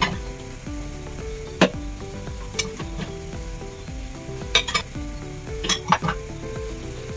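Dishes being washed: a sponge scrubbing a ceramic bowl, and ceramic bowls and a metal pot clinking against each other in a stainless steel sink. There is a sharp clink about a second and a half in and a cluster of clinks near the end, over light background music.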